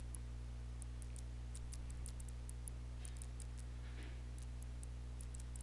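Steady low electrical hum of the recording setup, with faint scattered ticks at irregular intervals.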